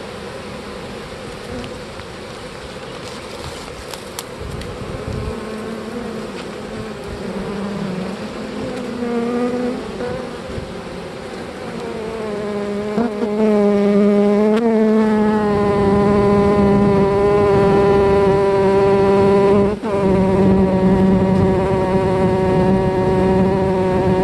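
Honeybee swarm buzzing, with a bee buzzing close to the microphone whose pitch wavers as it flies about; from a little past halfway the buzz grows much louder and holds steady.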